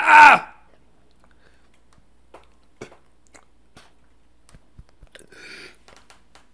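A man coughing hard and strained, once, loudly at the start, after a swig of drink went down his windpipe. Faint clicks and a short breathy rasp follow about five seconds in as he recovers.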